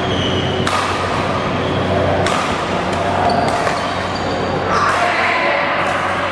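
Badminton rally: rackets striking the shuttlecock in sharp smacks about a second or so apart, about five in all, with short squeaks of court shoes on the floor.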